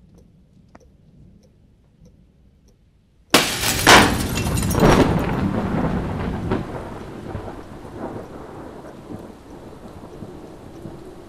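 A sudden loud crash, about three seconds in, that rumbles and dies away slowly over the following seconds. Near the end a low steady hum sets in.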